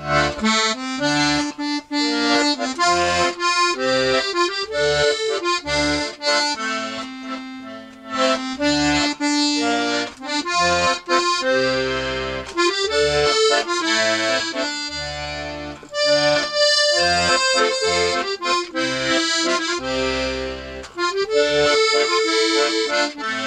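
Hohner Carmen II piano accordion playing a tune: a right-hand melody over a regular left-hand bass-and-chord accompaniment, with brief pauses near 8 and 16 seconds. The roughly 70-year-old instrument has a freshly fitted bellows gasket and holds good compression, but its reeds have not yet been tuned.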